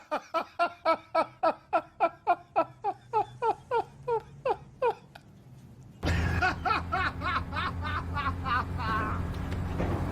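Laughing in quick, regular ha-ha-ha pulses, about five a second, each dropping in pitch, for about five seconds. About six seconds in the sound changes abruptly: more laughter over a steady low hum and background noise.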